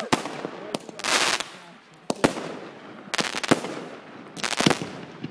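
Aerial fireworks bursting: about half a dozen sharp bangs at uneven intervals, with a short stretch of dense crackling about a second in.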